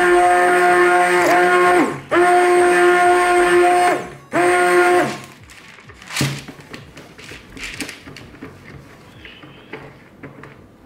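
Auxcuiso immersion blender motor running in soap batter in a plastic pitcher, switched in pulses: a steady whine for about two seconds, a brief drop, another two seconds, then a short last burst that winds down in pitch about five seconds in. After it stops, a few light knocks and scrapes.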